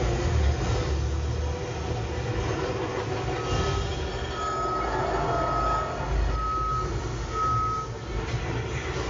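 Five evenly spaced electronic beeps, each about half a second long and on one pitch, starting about three and a half seconds in, over a steady low rumble.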